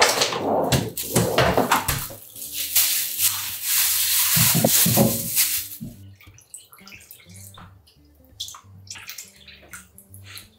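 Water poured from a plastic jug into a frying pan of raw oxtail, a steady rush that ends about six seconds in. After it come a few light taps and shakes of seasoning containers over soft background music.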